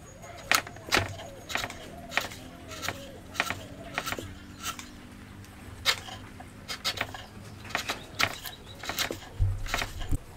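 Wooden chisel paring strokes: a steel chisel pushed by hand through the wood in short, irregular cuts, each one a brief crisp scrape or snick.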